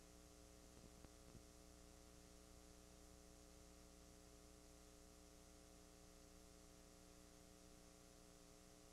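Near silence: a faint steady electrical hum and hiss from a blank stretch of videotape, with two faint clicks about a second in.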